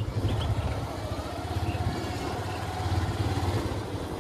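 Motorcycle engine running steadily at low speed, heard from on the bike, with a low, even thrum.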